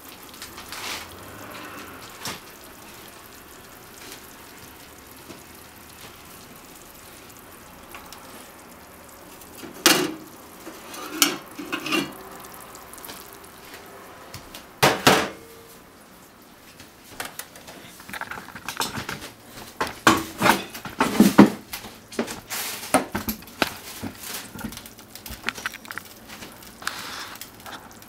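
A ceramic plate being handled and set down: a few separate sharp clinks and knocks, then a busier run of clattering in the second half.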